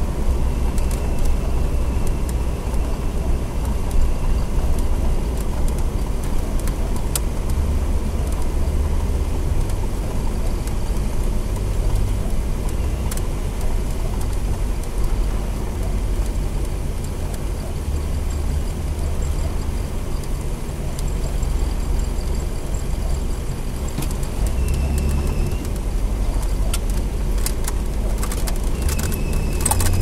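Pontiac Trans Am driving, heard inside the cabin: a steady engine and road rumble. A faint high whine comes and goes a few times; the car has a noise from its fan belt.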